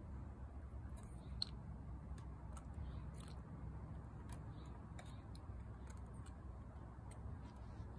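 Faint, scattered plastic clicks and taps from a toy garbage truck's grabber arm and small toy trash cans being moved by hand on concrete, the sharpest about a second and a half in, over a steady low rumble.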